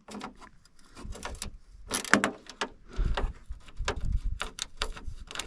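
Irregular metallic clicks and knocks of hand tools working the snowmobile's bumper fasteners, growing busier with a few heavier thumps about three seconds in.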